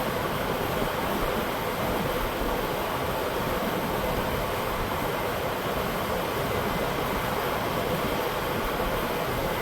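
Electric shop fan running: a steady rushing noise that never changes.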